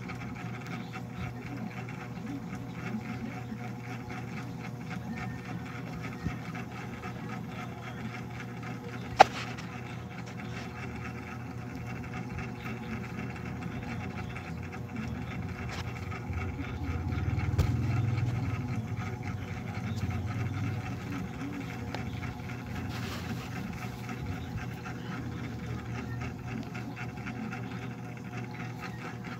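A steady mechanical hum, with a sharp click about nine seconds in and a brief louder low rumble a little past the middle.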